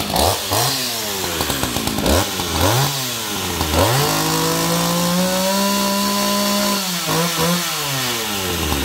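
Small two-stroke chainsaw engine being test-revved after a pull start: several quick throttle blips, each rising and falling in pitch, then held at high revs for about three seconds with the pitch creeping up, before dropping back toward idle near the end.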